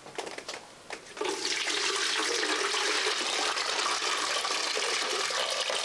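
Leak water pooled in a stretch ceiling pouring out through the light-fitting hole into a plastic bucket. It starts as a few splashes, then becomes a steady stream about a second in.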